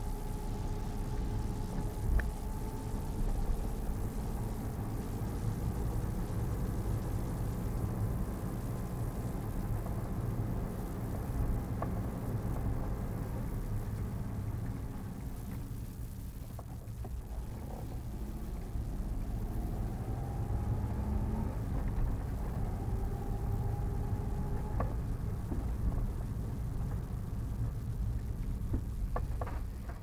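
Car driving slowly on city streets, heard from inside the car: a steady low engine and road rumble, with a faint engine hum whose pitch drifts up and down as the car speeds up and slows, and a few faint ticks.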